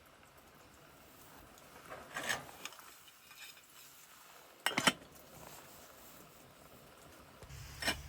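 Objects being handled, giving a few sharp knocks and clinks: a short one about two seconds in, a quick clattering cluster just before five seconds, the loudest, and another near the end.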